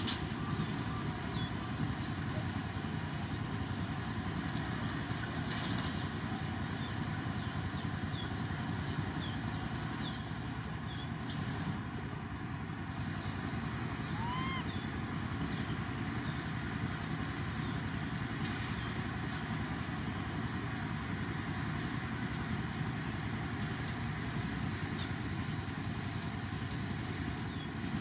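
Steady low rumbling background noise with faint short chirps throughout. About halfway through, a baby macaque gives one short rising squeak.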